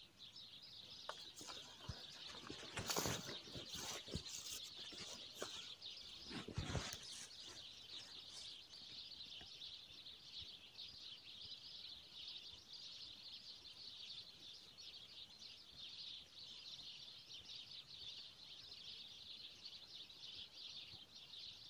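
Faint, steady chirping of small birds. In the first several seconds come a few rustles and knocks as the fishing rod is handled in dry reeds, two of them louder.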